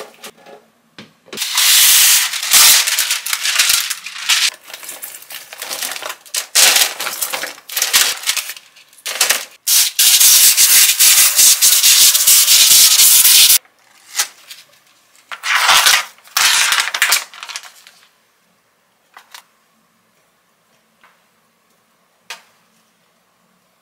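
Olive oil spray hissing in several bursts, the longest about four seconds, as oil is misted over dumplings in an air-fryer basket. After that it goes quiet apart from a few faint clicks as skewers are laid on a wire rack.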